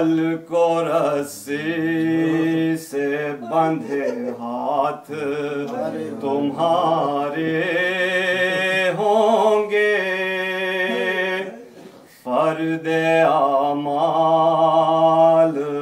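A man's unaccompanied voice singing an Urdu noha, a lament, in long held, wavering notes, with a short breath pause near the end.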